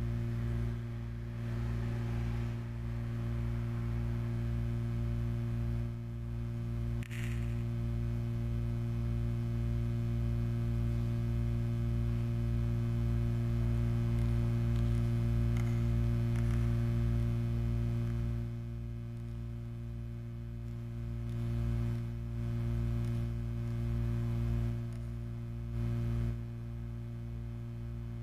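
Steady low electric hum: a drone of several stacked tones, strongest at the bottom, with a faint pulsing beneath it. It is a sound made to imitate tinnitus. A brief crackle comes about seven seconds in.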